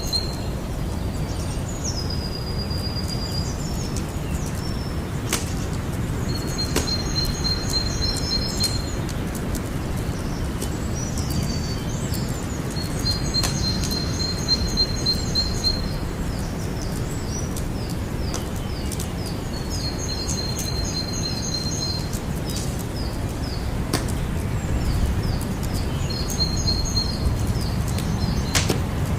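Campfire burning: a steady low rumble with scattered sharp crackles and pops. In the background a high, rapid chirping call repeats about every six or seven seconds.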